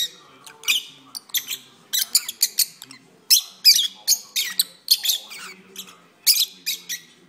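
Peach-faced lovebirds singing: clusters of rapid, shrill chirps and squeaks, several a second, broken by short pauses.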